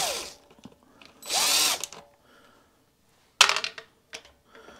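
A small cordless power tool spinning a 10 mm socket in three short bursts, each winding up and down in pitch, the longest about a second in: undoing the bolts that hold the air filter box.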